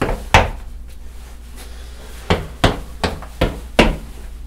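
Knocking on a door: two sharp knocks, then a run of five evenly spaced knocks a couple of seconds later.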